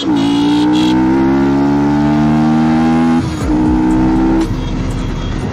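Yamaha R15's single-cylinder four-stroke engine accelerating under way through a loud exhaust. The pitch climbs steadily in one gear, drops at a shift about three seconds in, climbs again and eases off near the end.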